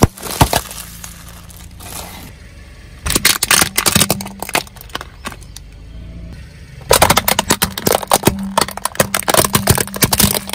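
A car tyre rolling over and crushing things: crisp packets crackle at the start, then plastic toys crack and snap under the weight in two long bursts of rapid cracks, about three and seven seconds in, with quieter stretches between.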